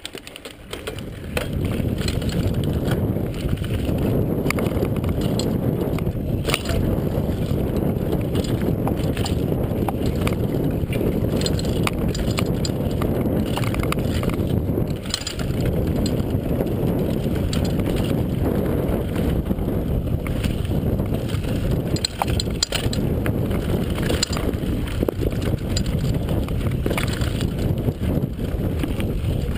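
Mountain bike ridden along a bumpy dirt trail, heard from a camera mounted on the rider: a steady loud rumble of wind and tyres, with frequent rattles and knocks from the bike over the rough ground. The rumble builds up over the first second or so as the bike gets going.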